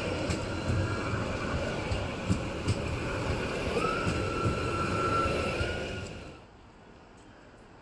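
Tatra KT4D articulated tram rolling past close by: a steady rumble of wheels on rail with a few sharp clicks, and a steady high whine from about four seconds in. The sound drops away about six seconds in, leaving a quiet background.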